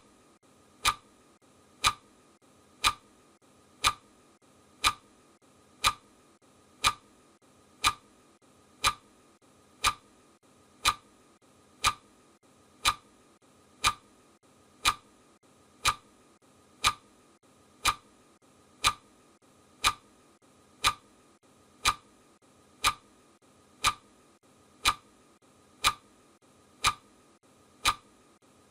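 Clock ticking, one sharp, evenly spaced tick each second: the ticking track of a countdown timer marking off the seconds.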